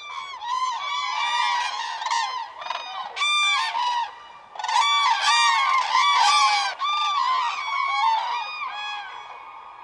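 A flock of cranes calling, many loud trumpeting calls overlapping in clusters. The birds are stirring at the roost before dawn, rousing one another to take off.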